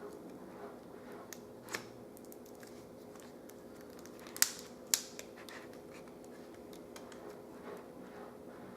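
Small clicks and light handling noises as the LCD cable connector is fitted to a laptop screen, with two sharp clicks about halfway through.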